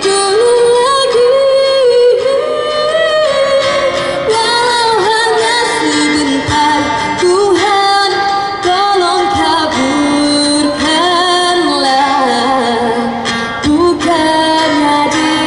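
A woman singing into a microphone with long held notes, accompanying herself on acoustic guitar.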